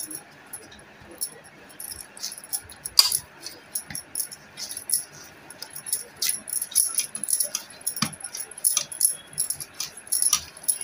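Hands kneading steamed rice-flour dough on a steel plate, with irregular light clinks and taps, a few of them louder, about three seconds in and about eight seconds in.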